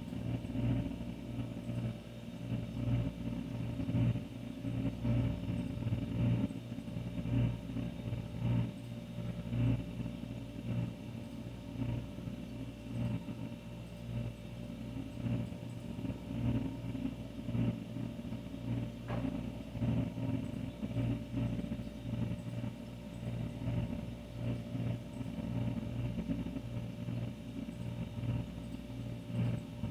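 An older refrigerator running: a steady low hum with a fainter higher tone above it.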